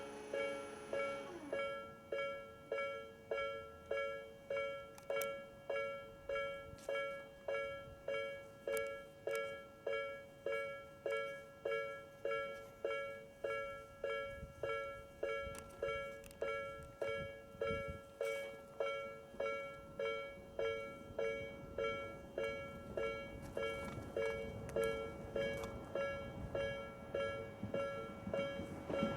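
Japanese railway level crossing's electronic warning bell ringing: a two-tone ding repeating steadily, about three times every two seconds. An approaching train's rumble grows under it near the end.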